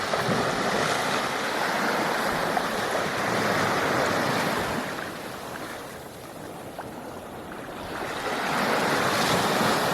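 Surf washing up on the beach. A wash of noise fades about six seconds in, then builds again near the end.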